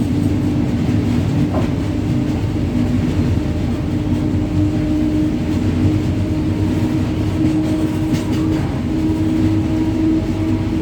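WAG-9 electric locomotive under way: a steady drone of running noise with a constant electrical hum of a few steady tones.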